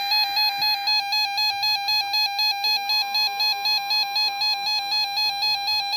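NOAA weather radio alert alarm beeping rapidly, about four pulses a second. A steady 1050 Hz warning tone comes in faintly under the beeping about halfway through.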